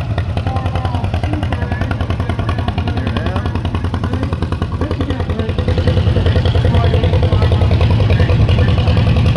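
Antique tractor engine running with a fast, steady firing beat, getting louder about six seconds in.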